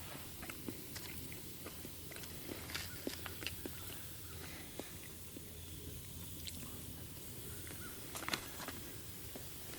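A person eating: chewing, with scattered small clicks and ticks throughout and a louder cluster near the end.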